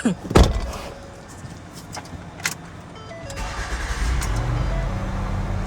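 A few sharp clicks, then a Ford Escape's 3.0-litre V6 starts about three and a half seconds in and settles into a steady idle. This is the first start after a spark plug change that meant removing the intake manifold.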